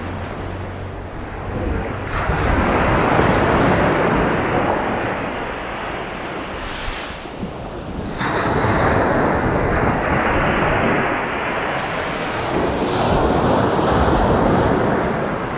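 Sea waves breaking and washing up a sandy beach: three surges of surf build and fade several seconds apart.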